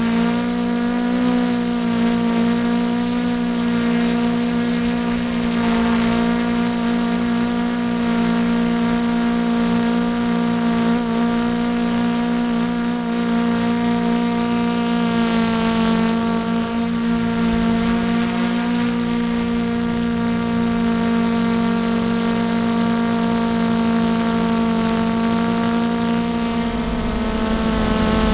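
Y6 tricopter's six brushless motors and propellers running in flight: a steady multi-tone hum with a thin high-pitched whine above it, the pitch shifting only slightly.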